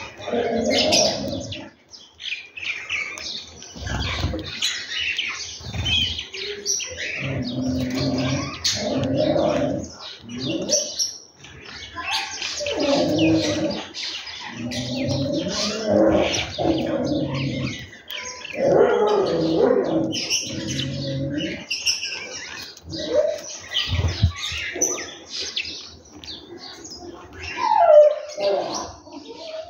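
A flock of house sparrows chirping busily and continuously. Underneath, a lower pitched sound of unclear source comes and goes several times, and there are a few dull thumps.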